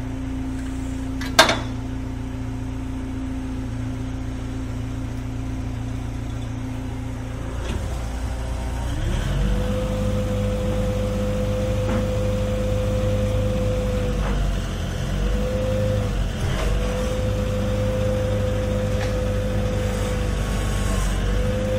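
Gehl 4510 skid steer's engine running at a steady idle, with one sharp knock about a second and a half in. Around eight seconds in the engine speeds up and a steady whine joins it, breaking off briefly a few times.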